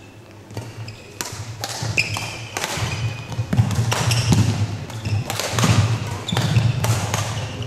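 Badminton rally: repeated sharp racket strikes on the shuttlecock, short squeaks of shoes on the court floor, and thudding footsteps.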